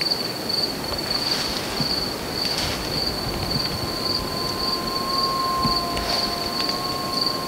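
A distant wild canid howling: from about four seconds in, one long, drawn-out, level note with a second, lower note held under it. The camper thinks it is most likely a wolf rather than a jackal. A steady pulsing insect trill, like crickets, runs underneath.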